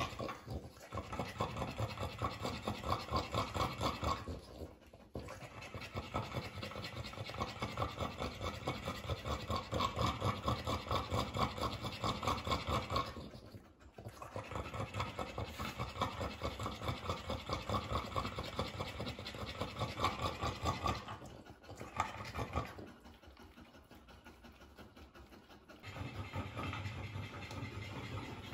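A dog panting quickly and steadily in long runs, broken by a few short pauses and a quieter stretch near the end.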